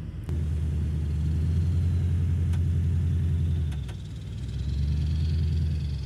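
Toyota Tundra pickup truck under way, its engine and drive giving a steady low rumble that eases off briefly about four seconds in and then picks up again.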